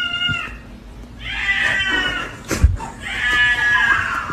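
Cat giving long, drawn-out meows: the end of one at the start, then two more of about a second each. A single thump falls between the second and third meow.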